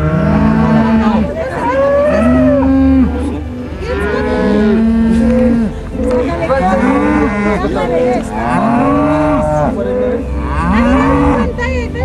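A herd of cows and calves mooing, with several animals calling one after another and overlapping. Each call rises and then falls in pitch, about one every second or two.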